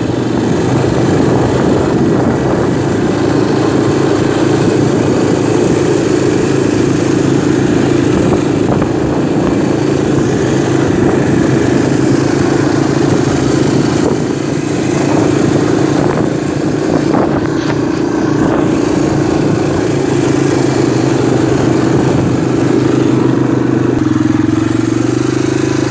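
Small ATV engine running steadily at an even speed, its pitch rising slightly near the end.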